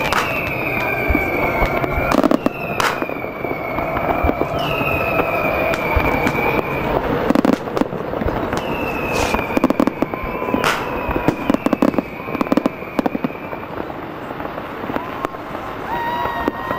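Fireworks display going off: sharp bangs and crackling, with several long whistles that each sink slightly in pitch.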